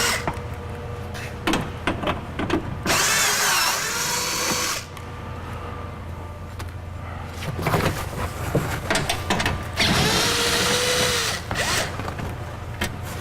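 Cordless drill-driver with a 10 mm socket spinning out the window regulator's mounting bolts from the door metal. It runs in two bursts of a couple of seconds each with its pitch wavering, with clicks and knocks of tool and bolts between.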